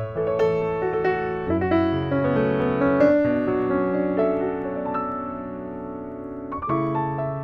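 Piano music: a slow piece of held chords, with new notes struck every half second to a second or so.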